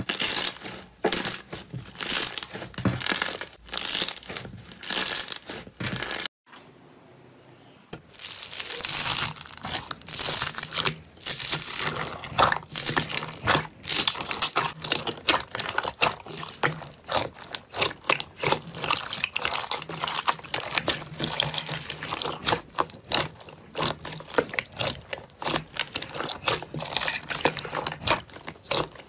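Slime being squeezed and kneaded by hand, giving rapid crackling, popping clicks, with a brief near-silent gap about six seconds in.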